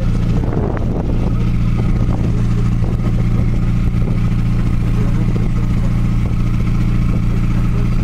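Ferry's engine running with a steady low drone made of several unchanging low tones, the boat under way.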